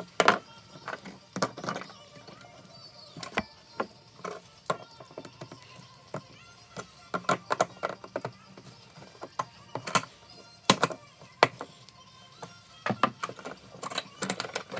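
Irregular metallic clicks, clinks and knocks of hand tools and small metal parts being handled, several dozen sharp strikes spread unevenly, some of them loud.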